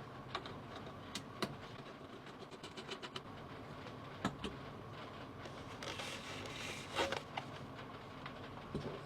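Scattered light clicks and taps of computer hardware being handled during a PC build, over a steady low hum. There is a brief scraping rustle about seven seconds in.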